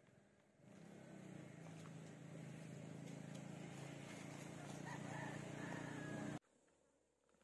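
A motor running with a steady low hum, slowly growing louder, then cut off suddenly about six seconds in.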